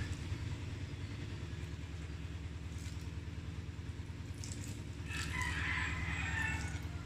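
Water poured into a hot wok of frying ground pork, potatoes and carrots, with a sizzle that swells about five seconds in, over a steady low hum.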